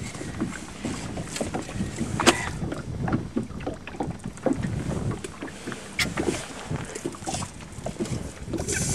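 Irregular knocks, clicks and rustles of handling, with wind on the microphone; just before the end a sudden loud hiss begins.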